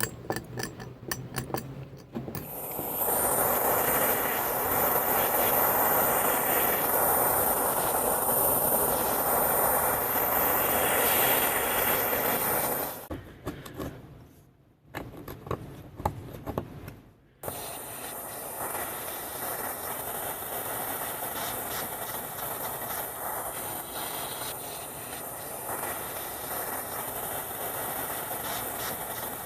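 Loud, steady rushing hiss from a workshop machine, which stops about thirteen seconds in. A few seconds of clicks and knocks follow, then the hiss starts again, a little quieter.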